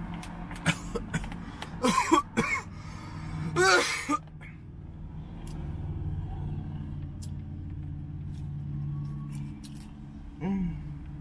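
A woman coughing and clearing her throat in a few short bursts, about two and four seconds in. A steady low hum swells in the middle.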